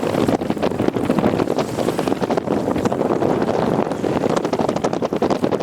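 Strong wind buffeting the microphone: a loud, uneven rushing noise with rough irregular crackles.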